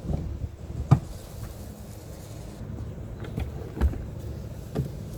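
Front seat of a 1996 Ford Explorer being moved forward on its track: a few scattered clicks and knocks, the sharpest about a second in, with a low thud near four seconds.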